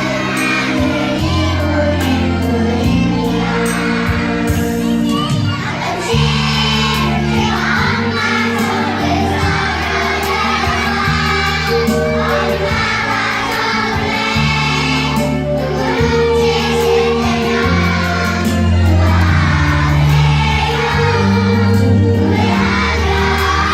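A group of children singing a song together over a recorded backing track with a steady bass line.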